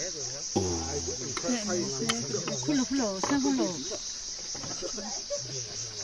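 A steady, high insect chorus of crickets runs throughout, with people's voices talking over it and a few light clicks, likely a serving spoon against the plate and pots.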